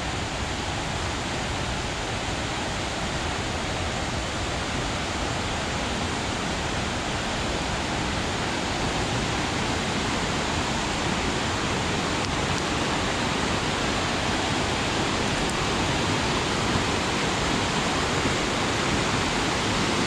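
Rapids of a swollen, muddy river gushing over rocks: a steady rush of water that grows slightly louder.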